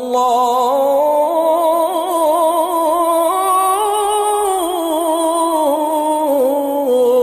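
Singing: a voice holds one long, wordless melismatic line with vibrato, winding slowly up and down without a break, as the vocal lead-in to a Bengali Islamic devotional song.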